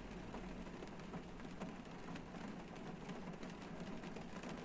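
Rain falling on a parked car's roof and windscreen, heard from inside the cabin: a steady hiss dotted with many separate drop ticks, over a low rumble.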